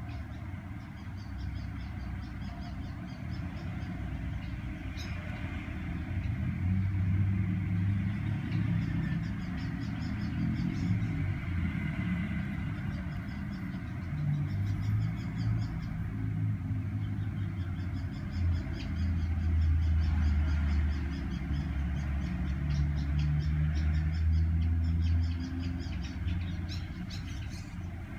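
Five-cylinder car engine running unevenly with a misfire, its low sound swelling and dropping back several times.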